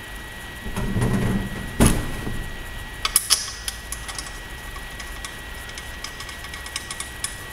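Hands working on a pocket bike wheel: a sharp knock about two seconds in, then a few clicks and scattered light taps of tools and parts.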